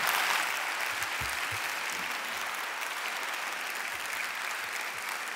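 Large audience applauding steadily in a hall, the clapping easing slightly in the first second and then holding level.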